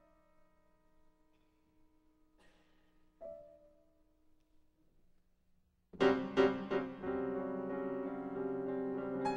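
Steinway concert grand piano played solo: a few quiet single notes and chords held and dying away with long pauses between, then about six seconds in a loud, dense chord struck three times in quick succession that keeps sounding.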